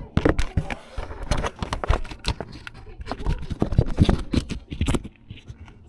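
Close handling noise: a rapid, irregular run of knocks, taps and scrapes as a small camera is moved and set in place.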